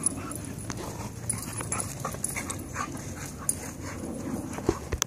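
A puppy and an older dog play-wrestling, with short, irregular dog play noises over a steady low rumble.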